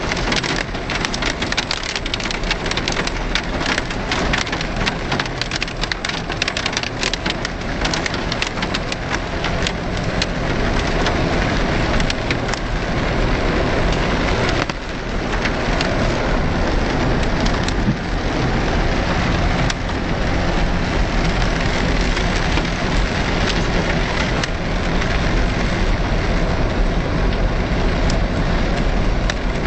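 4x4 driving over a rough, stony dirt track, heard from inside the cab: a steady engine and tyre noise with knocks and rattles as the vehicle bumps over the rocks, the knocks thickest in the first ten seconds or so.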